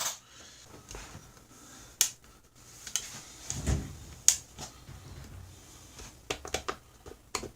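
Sharp plastic clicks and taps from handling a kitchen food chopper's parts: a few separate clicks, then a quick run of them near the end.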